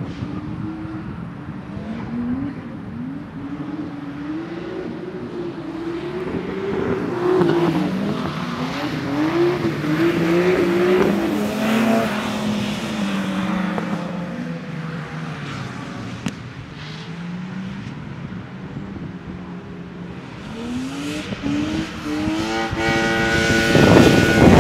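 Nissan S-body drift car's engine revving up and down over and over as it drifts past, with tyres squealing; it is loudest about halfway through as it passes close. Near the end another car's engine note builds and holds steadier as it approaches.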